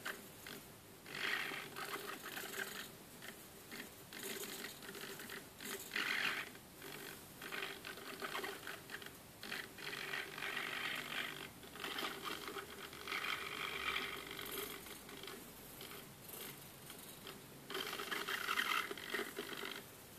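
Hobby RC servos of a head-tracked pan-tilt camera mount whirring in short irregular bursts, each a second or so long, as the mount pans and tilts. A faint steady hum runs underneath.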